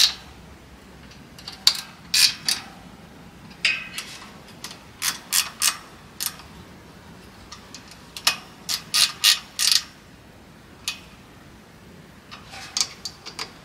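Scattered sharp clicks and clacks in small clusters of hand tools and parts being handled, with a ratchet-like clicking at times.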